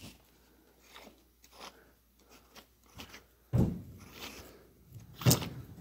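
Small die-cast Matchbox toy fire engine handled on a wooden floor: light clicks and scrapes, then a rougher rumbling scrape about halfway through as it is moved, and a sharp knock near the end.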